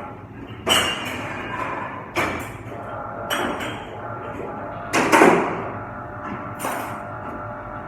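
Dishware clattering in a dishwashing area: about five sharp knocks with a short ringing after each, the loudest about five seconds in, over a steady machine hum.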